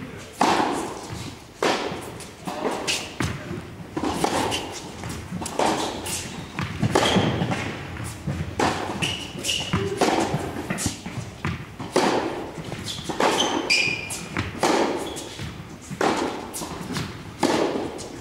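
Tennis ball struck by a racket and bouncing on an indoor hard court, sharp hits every second or so ringing in a large hall, with a few short high squeaks.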